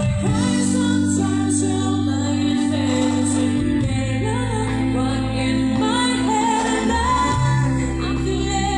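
Background music: a song with a singing voice over held low chords that shift every few seconds.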